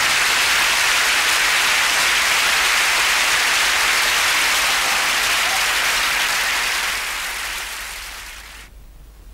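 Studio audience applauding, fading away over the last couple of seconds and cutting off near the end.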